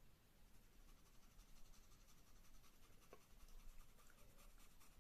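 Faint, rapid scratching of a knife blade scraped across the skin of a green apple, lifting off the fruit's wax coating in white flakes.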